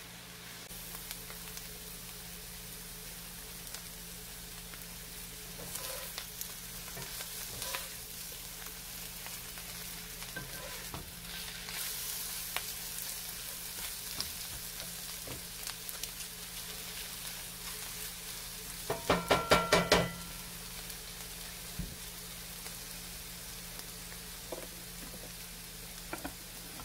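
Oyster mushrooms sizzling steadily as they sauté in butter in a cast-iron skillet, with the odd scrape and click of a wooden slotted spoon stirring them. About two-thirds of the way through comes a quick rattling run of about ten sharp knocks, the loudest sound.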